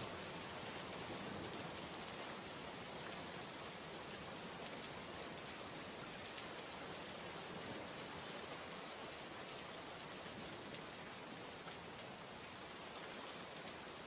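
Steady rain ambience used as a sound effect: an even hiss with a faint patter of drops.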